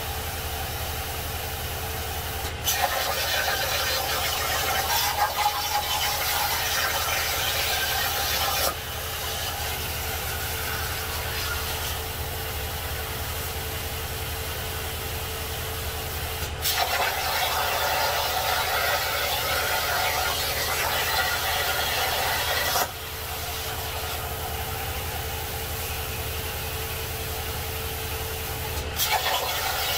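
Jasic Cut 45 plasma cutter on a DIY CNC table cutting steel sheet. The arc strikes with a sharp click, then hisses and crackles for about six seconds before cutting off; this happens twice, and a third cut starts near the end. Between cuts there is a quieter steady hiss and hum.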